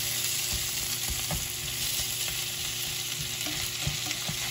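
Sliced sausage, potatoes and peppers sizzling in a nonstick frying pan, with the scrape and tap of a slotted spatula stirring them.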